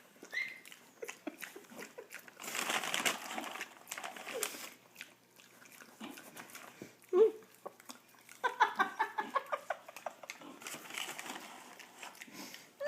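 A dog eating a French fry it has just been given, with many small chewing clicks and smacks. A rustling stretch comes a few seconds in, and a few brief pitched sounds break in here and there.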